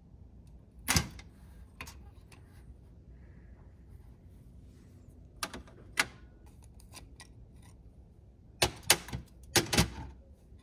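Small metal carburetor parts and a pair of needle-nose pliers clicking and clinking against a metal parts tray as a Rochester two-jet carburetor is taken apart. A few separate clicks come about a second in and around the middle, then a quick run of five or six near the end.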